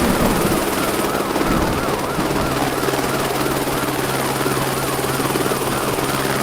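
Helicopter running steadily, with an emergency-vehicle siren in fast yelp mode over it, its pitch warbling up and down about four times a second.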